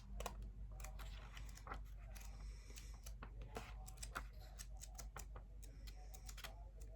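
Soft, irregular clicks and light rustles of a book's paper pages being leafed through and handled.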